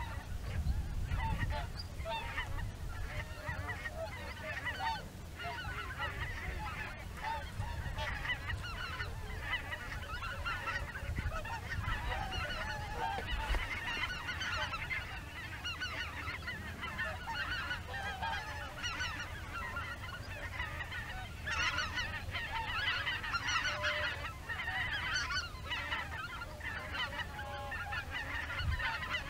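A flock of greater white-fronted geese calling continually in flight: many overlapping high-pitched honks, busiest about three-quarters of the way through, over a low rumble.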